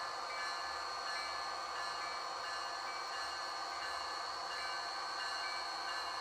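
Model trains running on a layout: a steady whirr of wheels on track, with thin, high, ringing tones that keep on and short ones that come and go.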